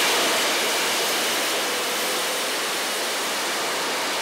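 Sedu Revolution Pro 6000i ionic hair dryer running steadily on its highest heat setting, a loud, even rush of air.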